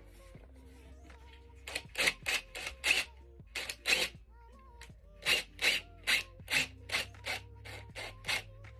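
Background music under two runs of quick rasping strokes, about three a second, with a short pause between the runs.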